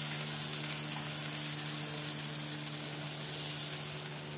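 Freshly added masala paste frying in hot oil with whole spices in an aluminium kadai: a steady sizzle that slowly eases off.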